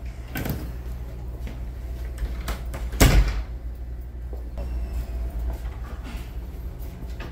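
A door thumps shut about three seconds in, with a few lighter knocks before it and a steady low hum underneath.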